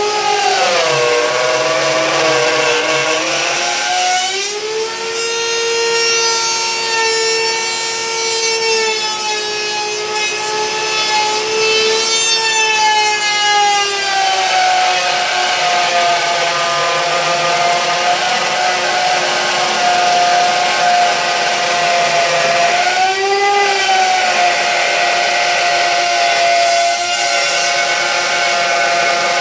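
Black & Decker plunge router with a 3/4-inch straight bit cutting a dado in wood: a loud, steady motor whine whose pitch wavers up and down as the cut goes on.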